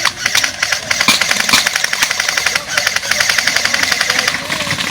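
Automatic airsoft gun firing long rapid bursts, a fast clatter of shots with short breaks between bursts.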